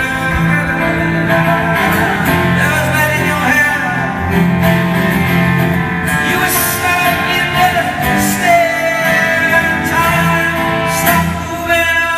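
Live solo performance: an acoustic guitar strummed with a man singing over it.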